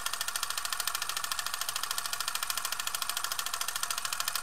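Film projector running, a fast, even mechanical clatter.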